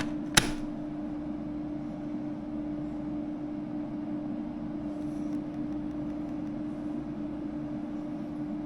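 A sharp click about half a second in, then the steady hum of running air-conditioning equipment, with one constant low tone.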